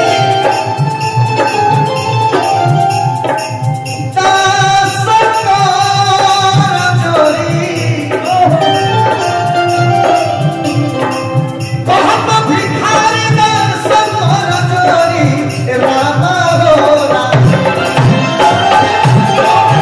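Live Bhojpuri folk music: melodic lines over a steady hand-drum beat, with a voice singing along.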